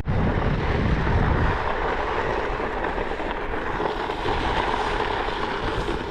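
Steady rushing wind and ride noise on an action-camera microphone while riding a Onewheel electric board, with heavier low buffeting for the first second and a half.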